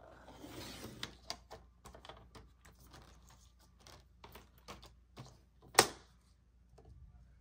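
Laminated plastic inserts and offcut strips being handled on a plastic paper trimmer: a brief rustle of the stiff laminate, then a run of light clicks and taps as the pieces are shifted and lined up, with one sharp, much louder click about six seconds in.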